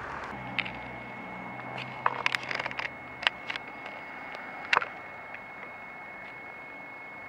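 A broad rumble, like passing traffic, fades away in the first second. Then comes an irregular run of sharp clicks and knocks, bunched about two to three seconds in, with a louder one near five seconds. A steady faint high whine runs underneath.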